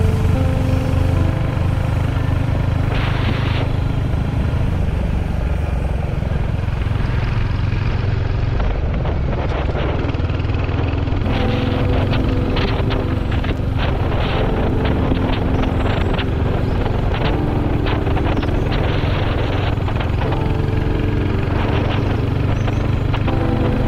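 Royal Enfield Hunter 350's single-cylinder engine running under way, mixed with a steady rush of wind on a helmet-mounted camera.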